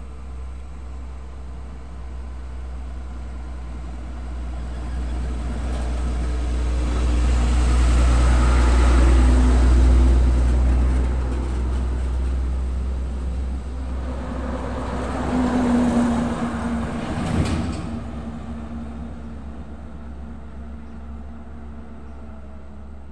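A heavy bulk tanker truck approaching and passing close by, its engine and tyre noise growing louder to a peak and then fading as it goes away. A second vehicle passes a few seconds later with a steady tone and a brief sharp sound before the noise dies down.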